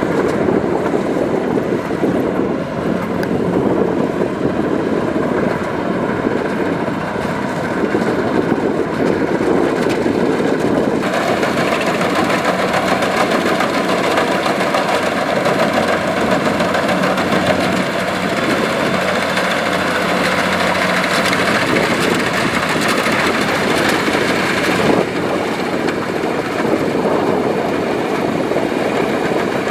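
Kubota rice combine harvester's diesel engine and threshing machinery running steadily. From about eleven seconds in to about twenty-five seconds it turns harsher and brighter, then settles back.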